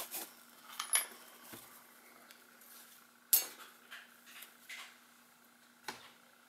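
Hands setting out a paper towel and a small tube of super glue on a wooden work board among small tools: a few light clicks and knocks, the sharpest about three seconds in.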